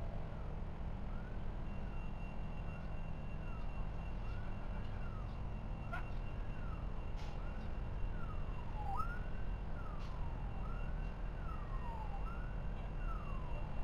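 An emergency vehicle siren wailing, rising and falling in pitch about every second and a half, over a steady low rumble.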